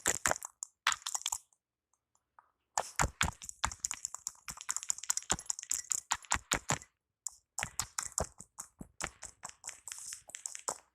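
Rapid percussive hand taps of a barber's Indian head massage, coming in fast runs of several strikes a second, with a pause about two seconds in and a shorter one about seven seconds in.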